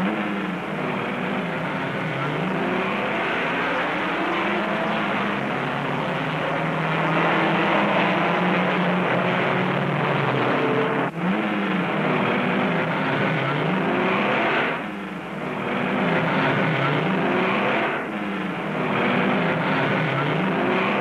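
1960s 1.5-litre Formula One racing car engines at full race pace, their pitch repeatedly falling and climbing again as they brake and accelerate through gears. The sound breaks off sharply a few times.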